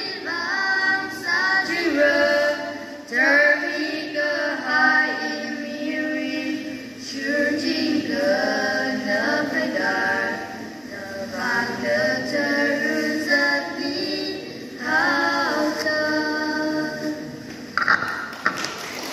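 Three girls singing a song together at a microphone, phrase after phrase, with no instrument heard. The singing stops shortly before the end.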